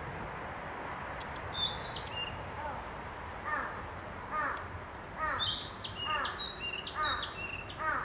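Narcissus flycatcher singing high, clear whistled phrases that step up and down in pitch. A lower, rougher call repeats about once a second from around the middle.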